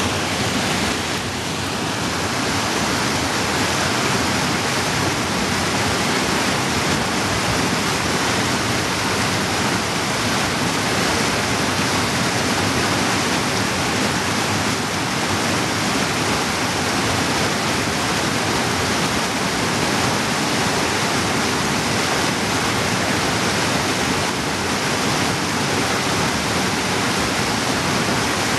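Fast creek cascading in whitewater over boulders: a steady rush of water.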